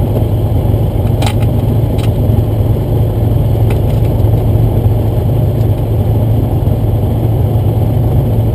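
Texan 550 light sport aircraft's propeller engine running steadily at low power, as when taxiing, heard as a steady low drone from inside the closed cockpit. A few brief sharp clicks come in the first four seconds.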